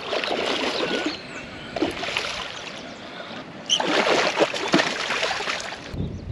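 A hooked bowfin thrashing and splashing at the water's surface as it is reeled in to the bank, in several bursts, the longest about four to six seconds in.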